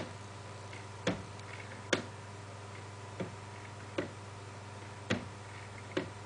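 Handmade wooden skeleton grandfather clock with a Graham deadbeat escapement ticking, about one sharp tick a second, the gaps alternating slightly short and long.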